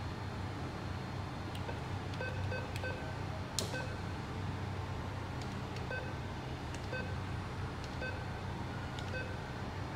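ATM keypad beeping as keys are pressed: a quick run of short beeps about two seconds in, then single beeps about once a second later on, with a sharp click a little past three seconds, over a steady low hum.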